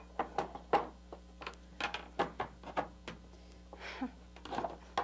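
Irregular light knocks and clicks of wooden blocks and clamps being handled and set against a wooden drawer box.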